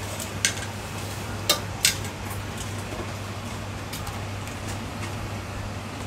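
Stainless-steel food tray clinking as marinated pork intestines are handled in it: three sharp clicks in the first two seconds and a few fainter ones about four seconds in, over a steady low hum.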